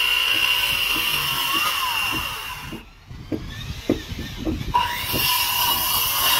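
Handheld electric circular saws cutting thick timber planks, a steady high whine. About halfway through the whine drops away for roughly two seconds, leaving a few knocks, then a saw spins up again and carries on cutting.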